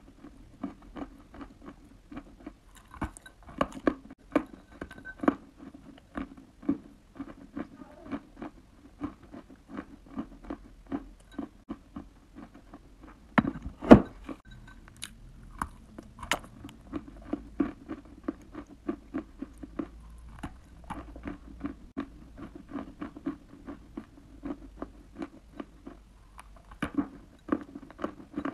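Close-miked chewing of a lump of soft clay: a stream of small, soft crunches as it is bitten and mashed in the mouth, with one much louder crunch about halfway through.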